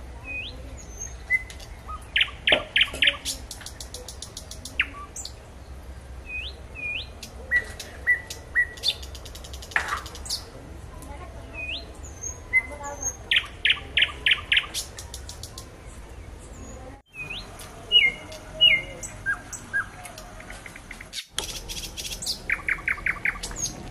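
Small birds chirping over and over: short rising whistled notes and quick runs of rapid chirps.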